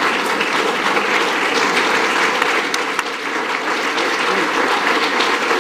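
Audience applauding steadily, a room full of hands clapping.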